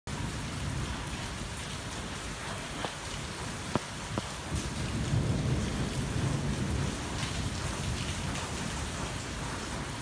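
Rain falling on a car's roof and windscreen, heard from inside the cabin, with a few sharp drop taps around three to four seconds in. A low thunder rumble swells from about four and a half seconds and fades by seven.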